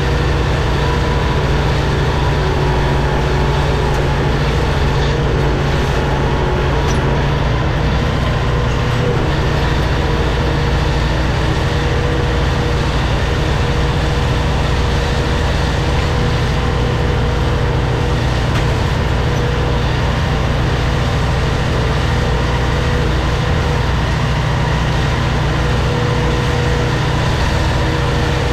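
Kubota tractor's diesel engine running steadily under load while pulling a disc mower through hay, with the mower's spinning drive adding to the din. A couple of steady held tones ride over the low engine rumble.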